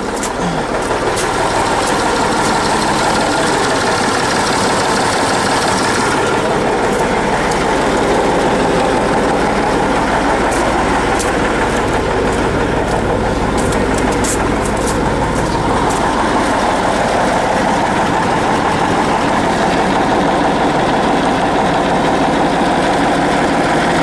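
A Т-150К tractor's ЯМЗ-236 V6 diesel engine running steadily at idle, warming up, with a few light clicks part-way through.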